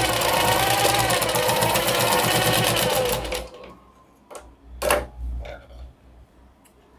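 Sewing machine running fast, stitching a straight plain seam through two layers of fabric, then stopping abruptly about three seconds in. A few light clicks follow, with one louder click near five seconds.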